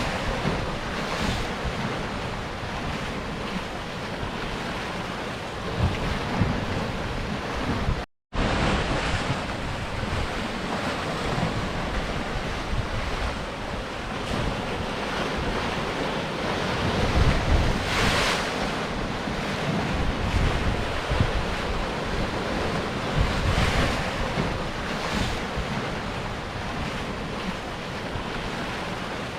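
Sea surf breaking on rocks: a continuous wash of waves that swells as bigger waves break, strongest about eighteen seconds in. The sound drops out for a split second about eight seconds in.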